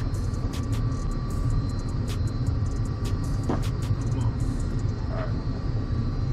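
Steady low rumble with a faint steady hum above it and scattered light clicks.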